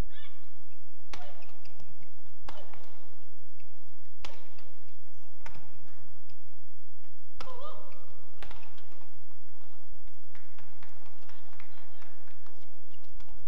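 Badminton rally: rackets striking the shuttlecock about every one to two seconds, mixed with short squeaks of shoes on the court.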